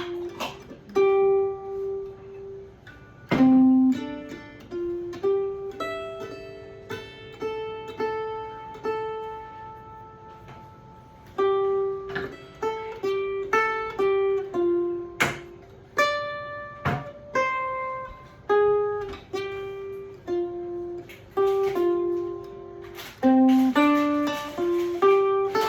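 Loar 310 electric plucked-string instrument playing a picked key-of-F turnaround, mixing quick single-note runs with ringing double stops and some held notes.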